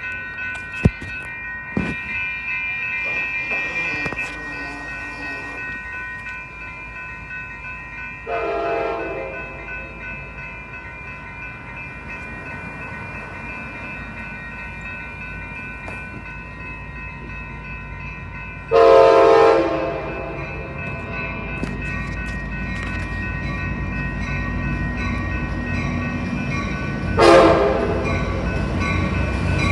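Grade-crossing warning bells ring steadily while an approaching Amtrak California passenger train sounds its horn: a short blast about a quarter of the way in, a longer, louder blast past the middle, and another near the end. The low rumble of the train grows over the last third as it draws near.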